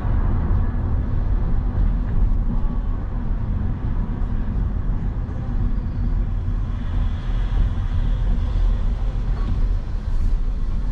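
A vehicle on the move, recorded from on board: a steady low engine and road rumble.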